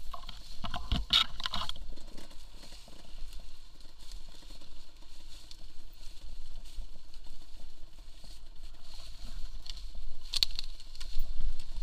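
Yamaha DT 125 two-stroke enduro motorcycle ridden slowly over leaf-covered forest ground, its engine a low steady rumble. Brief crackling scrapes of leaves and branches come about a second in and again near the end.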